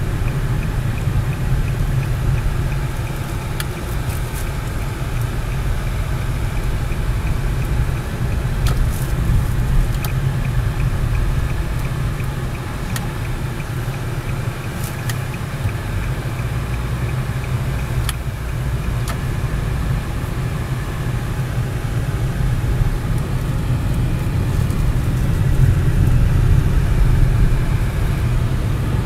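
Steady low road and engine rumble inside the cabin of a 2005 Nissan Bluebird Sylphy under way at moderate speed. It grows a little louder near the end.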